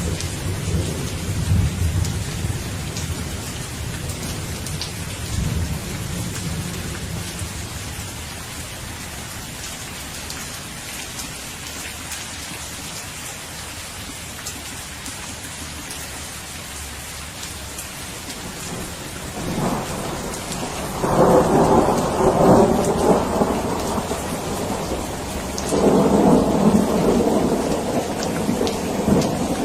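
Steady rain with thunder. A low rumble of distant thunder runs through the first several seconds. Two-thirds of the way in, louder peals of thunder break out, and another comes near the end.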